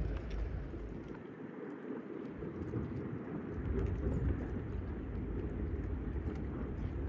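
Wind buffeting the microphone as an uneven low rumble that eases for a moment about a second in, with faint scattered clicks over it.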